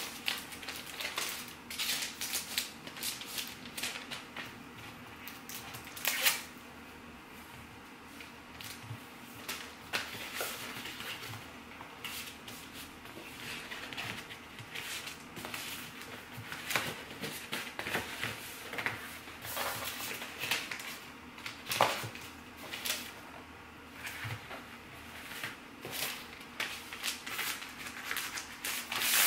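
Paper and plastic handling: sticker sheets in a clear plastic sleeve and a paper mailer are rustled, crinkled and folded, with scattered light taps and a few sharper clicks, the loudest about six seconds in and again near 22 seconds.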